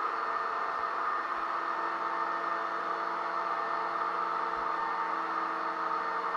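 Electric drywall sander running continuously, a steady motor whir with a constant hum.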